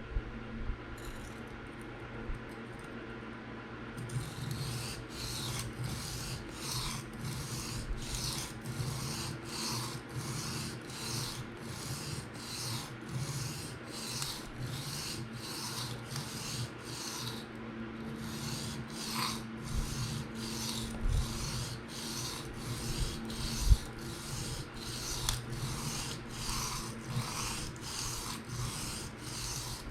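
PM60 steel knife blade scraped across a 600-grit Atoma diamond plate in freehand sharpening strokes, about one and a half a second, starting a few seconds in, with a short break near the middle and a single knock later on. The strokes are working up a burr on the second side of the edge.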